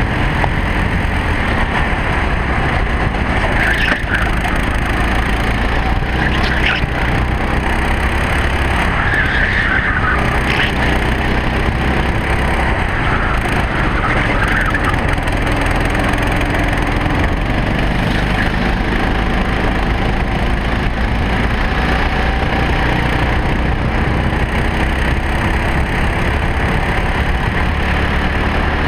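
Racing kart engine running hard under a heavy rattling, buffeting noise from the onboard camera mount, its pitch rising and falling through the corners. A few short tyre squeals come through in the first half.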